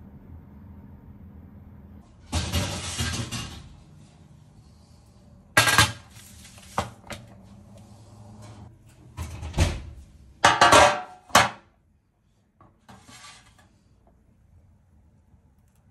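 Metal baking trays being handled: a scraping slide of about a second, then several sharp clanks of metal on metal. A faint steady hum runs under the first two seconds.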